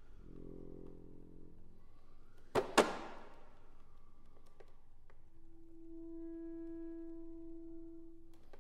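Chromatic button accordion playing sparse notes. A soft, low cluster of reeds sounds for about two seconds. Then come two sharp knocks a fraction of a second apart, the loudest sounds, and near the end a single steady reed note is held for about three seconds.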